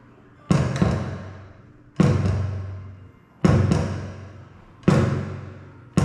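Kick drum pedal beater striking an electronic kick pad on a Roland Noise Eater isolation board: five heavy thumps about a second and a half apart, the first a quick double stroke, each ringing on with a low boom that dies away over about a second.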